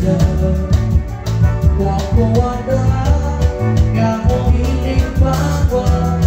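Live band playing upbeat dance music: a strong, moving bass line under a busy, even drum beat, with melodic notes held above.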